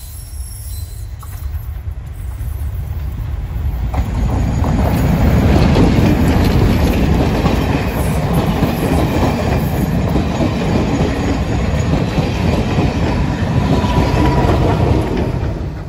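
A diesel-hauled passenger train passing close by: the Class 31 locomotive's engine grows louder on the approach, and there is a sharp rise about four seconds in as it draws level. Then come the heavy, steady noise of the coaches' wheels running on the rails and, near the end, the Class 14 diesel on the rear.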